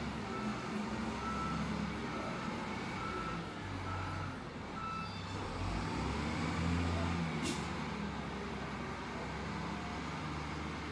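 SDLG wheel loader's diesel engine running as the machine manoeuvres, with its reversing alarm beeping in a steady rhythm, a beep about every half second, for roughly the first five seconds before it stops. A short hiss comes about seven and a half seconds in.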